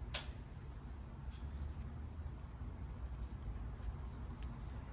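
A few faint clicks and rustles from the copper braid of RG213 coax cable being spread out by hand, under a steady high-pitched whine.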